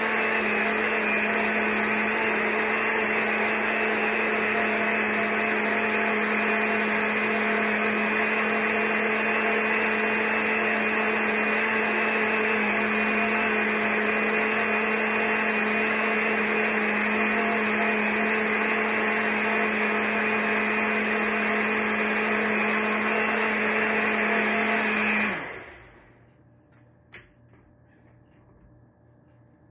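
Single-serve bullet-style blender running steadily at one speed while blending a green drink, then switched off about 25 seconds in, its motor spinning down in about a second. A single sharp click follows.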